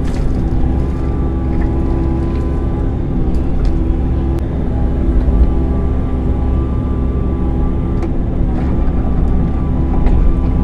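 Excavator's diesel engine running steadily, with steady tones over the drone and a few faint clicks or knocks.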